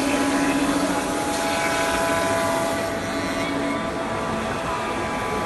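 CNC router spindle running steadily while milling a wooden foundry pattern: a steady machine hum with several held tones, the lowest of which fades out about two-thirds of the way through.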